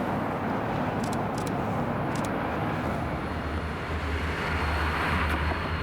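Transit bus driving past, a steady engine drone and road noise with a low rumble that grows stronger in the second half.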